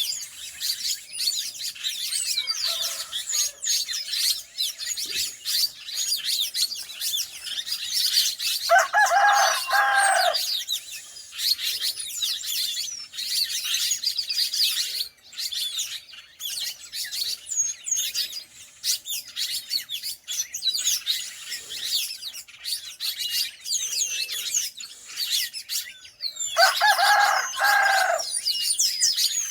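A dense chorus of small birds chirping and twittering throughout. A rooster crows twice, once about a third of the way in and once near the end, each crow lasting about a second and a half.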